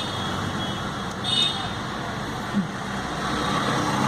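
Steady road traffic noise, the hum of passing vehicles. About a second in there is a brief high-pitched tone.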